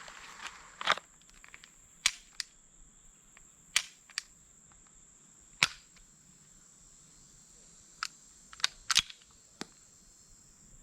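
SIG P226 Mk25 9mm pistol firing single shots, several at irregular intervals of a second or two, with lighter sharp cracks in between. The practice ammunition is giving trouble: the shooter calls it definitely some ammo problems, with primer failures.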